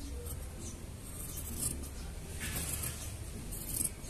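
Scratchy strokes of a marking tool drawing lines on a sewing pattern, heard as a few short scrapes over a steady low hum.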